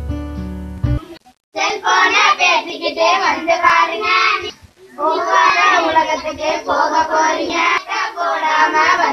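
Acoustic guitar music that cuts off about a second in, then a group of children singing loudly together, with a short break in the middle.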